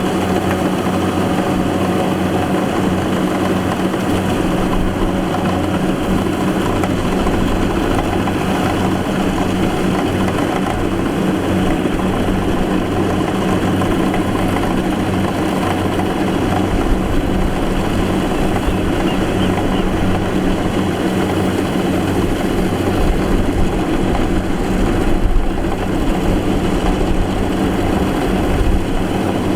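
Diesel engine of a rice combine harvester running steadily under load, with the rattle and whir of its machinery.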